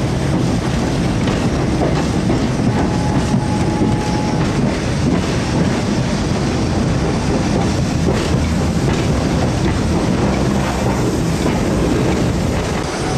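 Steady, loud running noise in the cab of Peppercorn A1 Pacific steam locomotive 60163 Tornado under way: the engine working and the rattle of the moving footplate.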